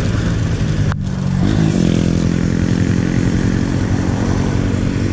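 Motorcycle engine idling steadily, its pitch stepping up slightly about a second and a half in.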